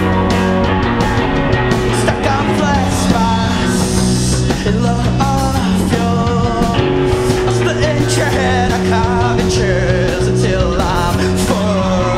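Rock band playing live: electric guitars over drums and cymbals.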